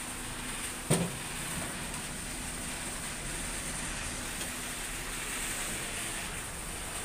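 Steady mechanical running noise with a thin high whine, broken by one sharp click about a second in.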